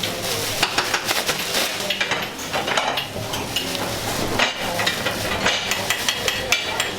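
Busy commercial kitchen clatter: dishes, pots and metal utensils clinking and knocking irregularly over a steady background hum.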